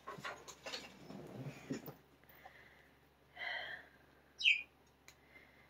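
Quiet room with faint handling noises, a short breathy sound about three and a half seconds in, and a brief high chirp that slides down in pitch from a caged pet bird shortly after.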